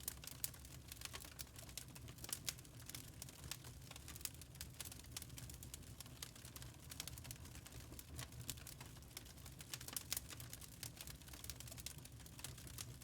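Logs burning in a fireplace, crackling with irregular sharp pops and snaps over a low steady rumble.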